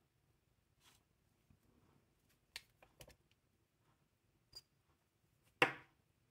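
Light clicks and taps of hard objects being handled, with one louder knock about five and a half seconds in.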